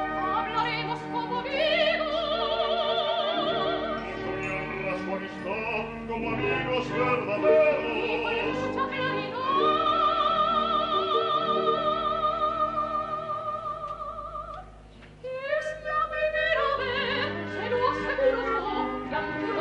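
Operatic zarzuela singing with wide vibrato over an orchestra, from a duet for baritone and soprano. A long held note from about halfway through fades away, then the music briefly drops nearly out before starting again.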